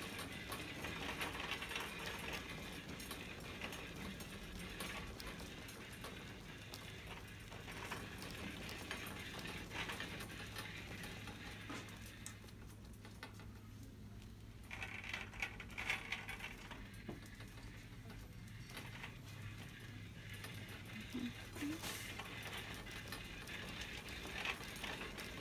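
Faint shop-floor ambience: a shopping cart rolling and rattling, with scattered small clicks over a steady low hum.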